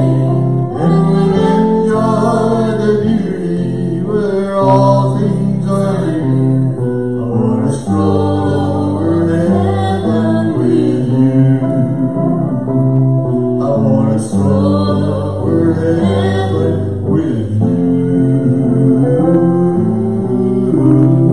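Live band music on electric and acoustic guitars with a steady bass line and singing.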